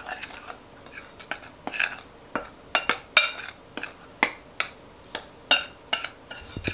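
Metal spoon stirring dry flour and spices in a mixing bowl, clinking against the sides of the bowl in irregular taps, about three a second.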